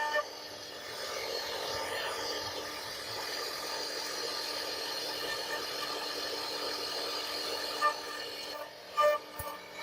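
CNC router spindle cutting wood: a steady high whine over a rough cutting noise, which stops about a second before the end.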